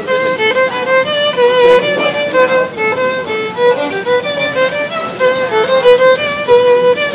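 Solo violin played with a bow: a lively tune of quick, short notes, one after another.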